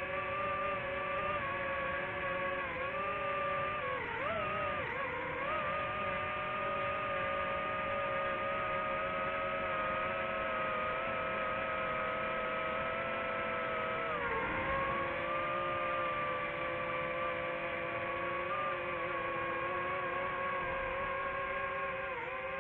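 DJI FPV drone's motors and propellers whining at a steady pitch. The pitch dips and wobbles briefly about four seconds in and again around fourteen seconds, as the throttle changes.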